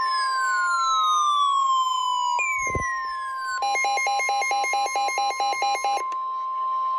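NOAA Weather Radio's 1050 Hz warning alarm tone, one steady loud tone that signals a warning is about to be read. Falling electronic sweeps play over it in the first half, then a rapid electronic beeping at about four beeps a second for a couple of seconds, with a brief low thud about two and a half seconds in.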